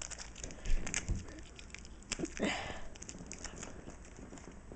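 Small packaging being opened by hand: light rustling and scattered clicks, with a couple of dull bumps from handling about a second in and a short rustle around two and a half seconds in.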